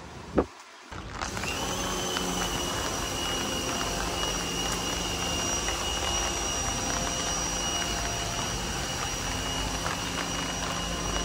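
A single sharp click, then a motorized machine running steadily: a droning hum with a thin high whine over it. It starts abruptly about a second in and stops suddenly at the end.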